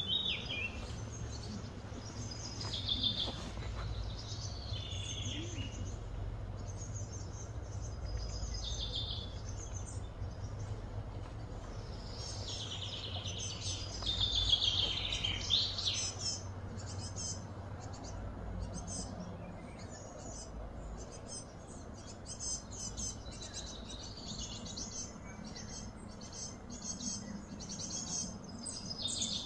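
Outdoor ambience of birds calling: short whistled and chirping calls, busiest around the middle, with quick repeated chirps toward the end, over a steady low hum.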